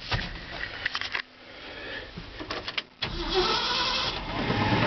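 Small clicks of handling, then about three seconds in the 1975 Ford F-500's 390 cubic-inch V8 is cranked and fires on a cold start, running on steadily.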